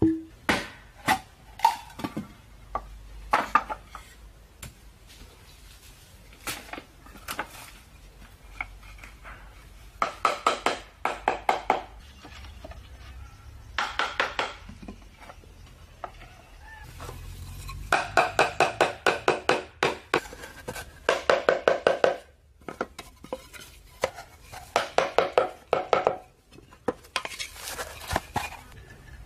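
A blade chopping at bamboo: short runs of rapid, ringing knocks, several a second, with pauses between the runs.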